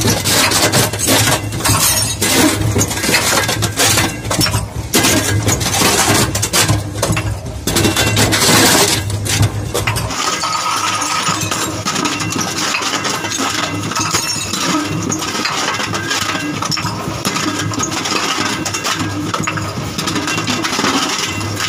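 Heavy rollers of a pan mill crushing beer bottles: glass cracking, crunching and clinking in a dense rapid clatter over a low machine hum. About ten seconds in the sound changes suddenly, the low hum dropping away while a lighter glass grinding goes on.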